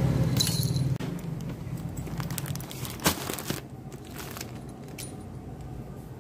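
Plastic packaging rustling and crackling as it is handled, with scattered clicks and one sharper click about three seconds in. A low hum fades out over the first few seconds.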